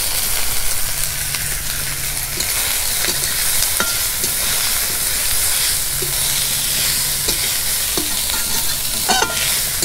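Chicken mince with chopped onion and green chilli sizzling in hot oil in a kadai, with a steady hiss. It is being stirred, with a sharp scrape or knock of the spatula on the pan every second or so.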